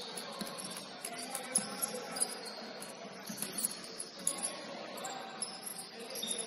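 Basketball shoes squeaking on a hardwood gym floor: many short, very high chirps coming again and again as players cut and stop, over the murmur of a busy gym, with a few sharp knocks.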